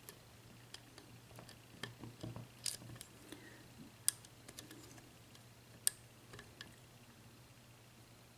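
Faint, irregular clicks of a lock pick working the pins of a Yale six-pin mortice lock cylinder, with spool drivers and serrated key pins, while the third pin is checked under tension. Two sharper clicks come about four and six seconds in.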